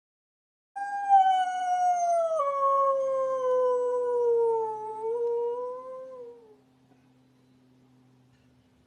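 A dog howling: one long howl of about six seconds that slowly falls in pitch, lifts slightly, and trails off.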